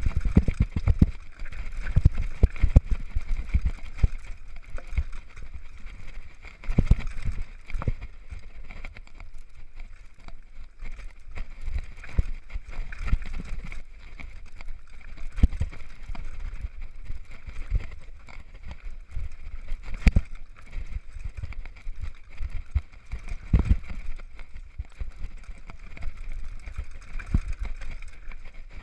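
Downhill mountain bike riding fast over a rocky dirt trail, heard from on the bike: a steady rush of wind and tyre noise broken by constant knocks and rattles as the suspension and frame take the bumps, with a few harder thuds.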